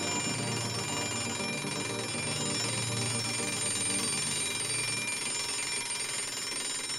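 A quiet electronic drone: many high tones held steady over a low hum, the hum fading out about five seconds in.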